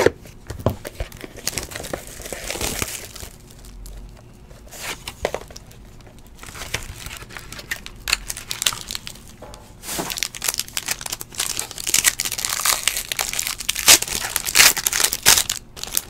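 Clear plastic wrapping on a 2016 Infinity Football card box being torn open and crinkled by hand: irregular crackling and tearing, busiest near the start and through the last several seconds.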